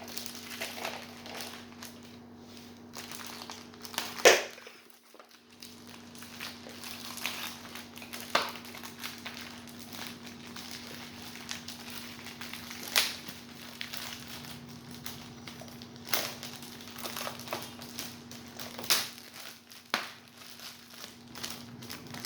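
Plastic packaging crinkling and crackling as it is handled and pulled open, with a sharper, louder crackle every few seconds.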